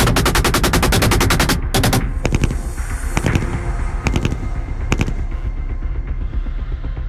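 Automatic gunfire: a rapid burst of roughly ten shots a second lasting about a second and a half, followed by several separate shots over the next few seconds. A steady low music bed runs underneath.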